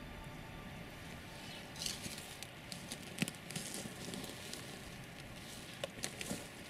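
Footsteps crunching and rustling through dry grass and brush, a scatter of crackles and snaps. The sharpest snap comes about three seconds in, with a few more close together near the end.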